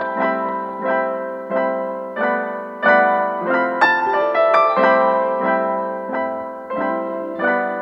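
Background piano music: single notes and chords struck about twice a second, each fading before the next.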